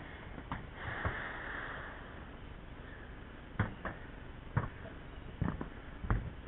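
Irregular footsteps and knocks on corrugated metal roof sheeting, about six sharp thuds at uneven intervals, with a short breathy hiss about a second in.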